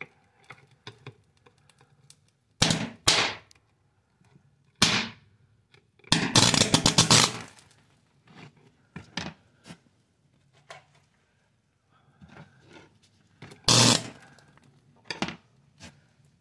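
A scorched computer circuit board sparking and flaring up where a rod is held to it: five short bursts of hissing crackle, the longest about a second and a half near the middle, with faint ticks and crackles between them.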